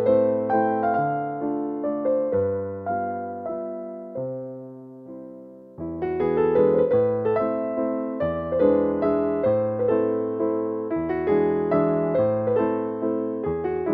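Gentle background piano music. One phrase dies away to a brief pause about five seconds in, and the playing picks up again about a second later.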